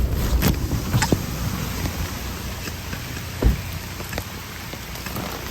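Heavy rain falling steadily, with a few sharp knocks in the first second and a louder dull thump about three and a half seconds in.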